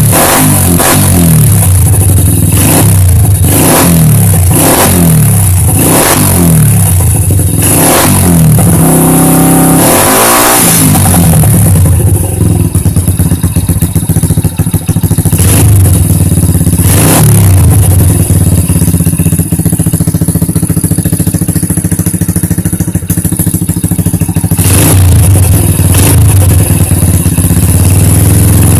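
Honda Wave 100 motorcycle's single-cylinder four-stroke engine breathing through a high-mount Daeng aftermarket exhaust, revved in short throttle blips about once a second, then one longer rev and a stretch of steadier running broken by a few more blips. Loud throughout.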